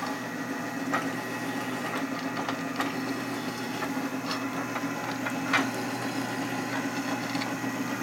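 Old Sears drill press running steadily while a countersink bit deburrs the holes of a motorcycle brake rotor, with a few short sharp clicks and scrapes as the cutter bites into the metal.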